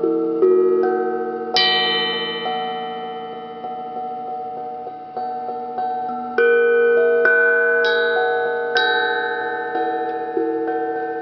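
Hamon, a tuned iron folk percussion instrument, struck note by note about once a second in an unhurried melody. Each metallic note rings on for several seconds, so the tones overlap.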